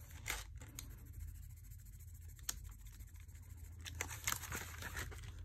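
Faint scratching of a Brutfuner coloured pencil on paper as a swatch is scribbled, with a few light clicks as the pencil meets the clear plastic tray near the end.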